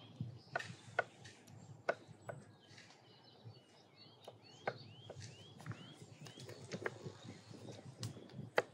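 Irregular sharp knocks of a kitchen knife against wood as vegetables are cut, with small birds chirping throughout. Near the middle there is a quick run of short rising chirps.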